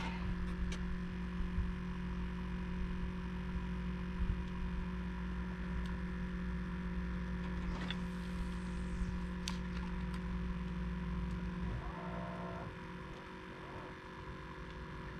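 Steady hum of a small electric motor on a fishing boat, with faint clicks over it; the hum cuts off about 12 seconds in.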